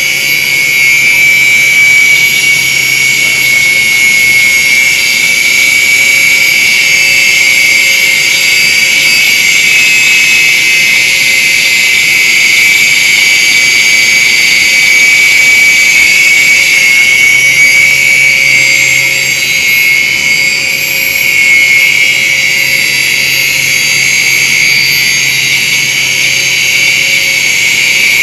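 Angle grinder clamped in a lathe tool post, running steadily with a high whine as its abrasive disc grinds the seat face of a large diesel engine valve turning in the lathe: the valve is being refaced.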